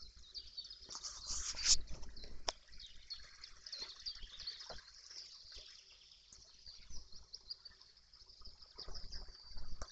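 Several birds singing and chirping continuously, high-pitched, over a low steady rumble. About a second in there is a short loud rush of noise, and a few sharp clicks follow.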